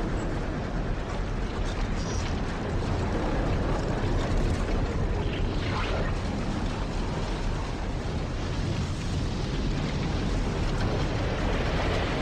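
Simulated tornado roar: a loud, steady rumbling wind noise with no breaks.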